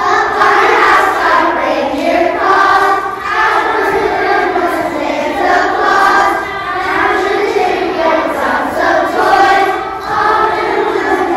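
A large group of young children singing together as a choir, loud and continuous, starting right at the beginning.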